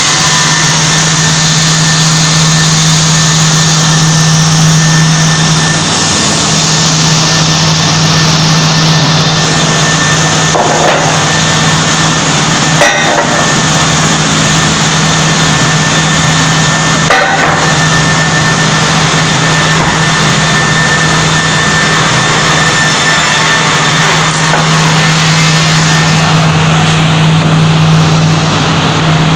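Multi rip saw running and cutting wood: a steady motor hum under a dense, continuous sawing noise, with a few short knocks.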